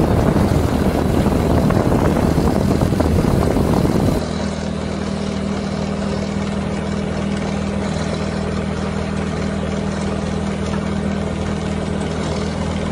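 The engine of a homebuilt Zenith STOL CH 750-type light aircraft is running on the ground with its propeller turning. It is louder and noisier for about the first four seconds, then changes abruptly to a steady, even run.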